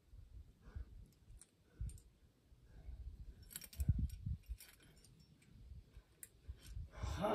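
Faint, scattered clicks and light knocks of climbing gear and rope handling, with a louder, breathy rush of noise about seven seconds in.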